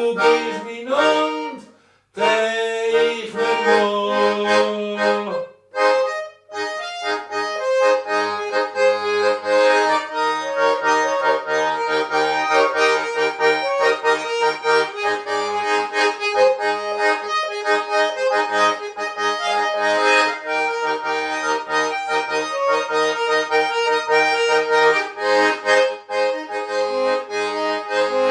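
Schwyzerörgeli (Swiss diatonic button accordion) playing a lively traditional Swiss folk tune: a melody of held reed chords over a regular pulsing bass, with two brief breaks about two and six seconds in.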